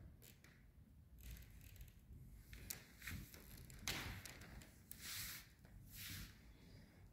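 Near silence: faint room tone with soft rustles that come and go, and two small clicks, one a little under three seconds in and one about four seconds in.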